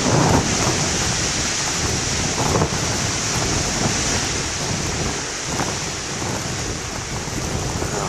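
Heavy surf crashing and churning over shore rocks, mixed with strong wind buffeting the microphone: a steady, loud rush of noise with a low rumble underneath.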